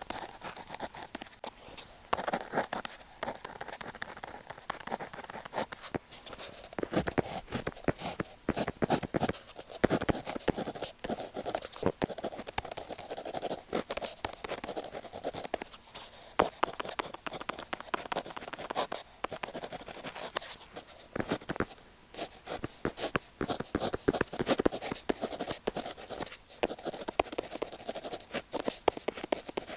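Pen tip writing on paper close to the microphone: quick irregular scratching strokes and light taps, with short pauses between runs of writing.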